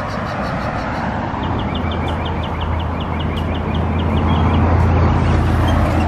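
Road traffic with a vehicle engine growing louder toward the end as it approaches and passes. A rapid series of short high chirps sounds for about two seconds in the middle.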